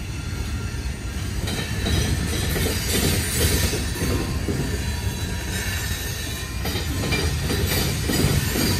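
Freight train's covered hopper and tank cars rolling past at close range: a steady rumble and clatter of steel wheels on the rails.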